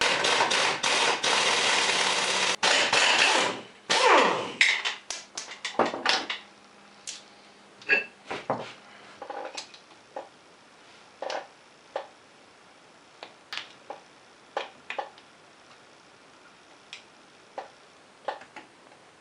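A loud harsh rattling noise for about the first three and a half seconds. After it comes a run of sharp metal clinks and clicks from hand tools on the ATV's rear axle hub nut and bolts, thinning out to a few scattered clicks.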